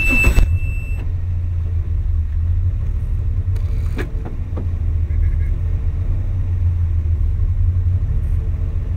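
GU Nissan Patrol rally car's engine running at low revs, heard from inside the cabin as a steady low drone while the car creeps forward. A high beep cuts off just after the start, and a couple of short knocks come near the middle.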